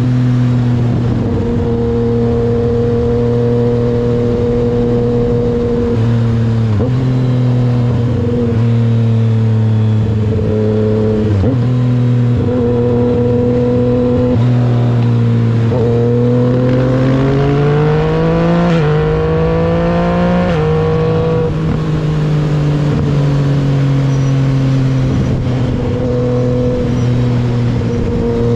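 Yamaha MT-09's inline-three engine running under way at a steady pitch. It dips briefly a few times, climbs for a few seconds past the middle, then steps back down and settles.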